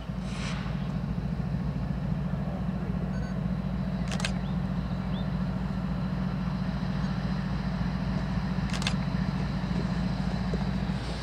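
Diesel locomotive of Norfolk Southern 8103, a GE ES44AC, running as it approaches, a steady low engine drone that eases off just before the end. Three short sharp noises break in at about half a second, four seconds and nine seconds in.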